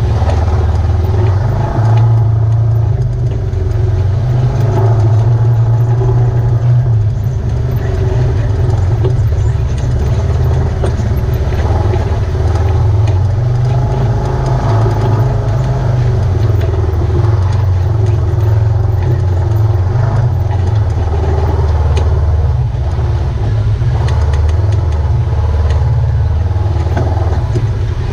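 Engine of a side-by-side UTV running as it drives a dirt trail, a low rumble that rises and eases with the throttle.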